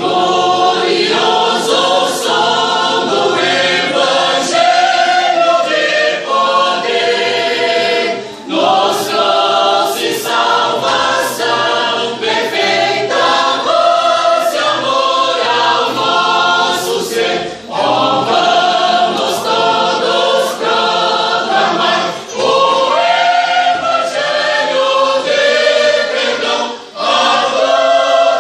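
Church choir singing a Portuguese gospel hymn in full voice, in long phrases with brief breaks between them.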